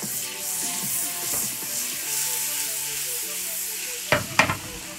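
Butter sizzling and foaming in hot oil in a frying pan, a steady hiss. About four seconds in, two sharp knocks as the pan is moved on the hob.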